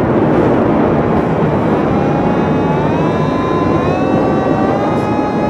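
Hand-cranked mechanical siren being wound up: a loud rushing whirr, with a wailing tone that comes in about two seconds in and slowly rises in pitch as the rotor speeds up.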